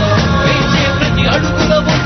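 Loud, upbeat song with a sung melody over instrumental backing.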